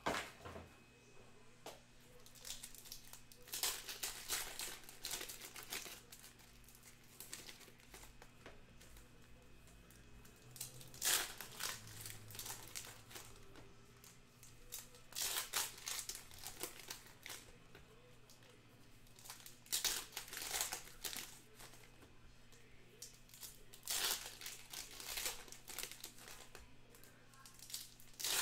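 Foil trading-card pack wrappers crinkling and tearing as the packs are opened by hand, in repeated bursts a few seconds apart, over a faint steady hum.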